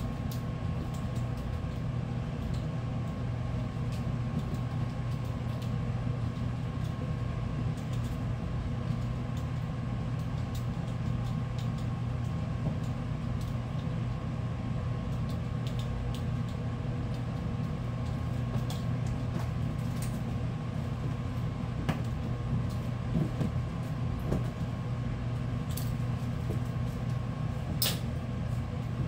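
A steady low mechanical hum with a faint whine on top, unchanging throughout, with a few light taps and clicks, the sharpest near the end.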